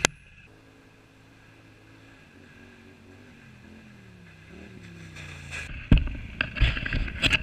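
Faint ATV engine running with slowly wavering pitch, rising a little near the middle. About six seconds in, loud knocks and rattling close to the camera.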